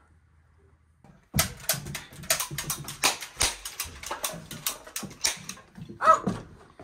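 A child waving a flag on a wooden veranda: after a second of near silence, a quick, irregular run of loud, sharp slaps and knocks, several a second, with a brief high child's voice near the end.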